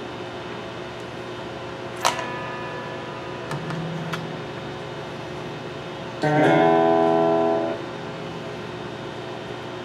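Electric guitar tried out while its pickup heights are being set: one plucked note about two seconds in, two light plucks, then a strummed chord about six seconds in that rings for about a second and a half before being cut off.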